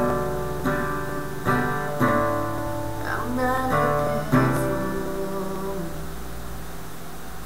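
Acoustic guitar strumming the closing chords of a song, with a brief sung phrase about three seconds in; the last chord, struck a little past four seconds, rings out and fades away.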